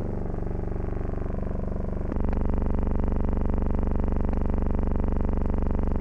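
Combine harvester's engine running with a steady low drone and many overtones. About two seconds in it grows louder and settles to an even pitch, then cuts off abruptly at the end.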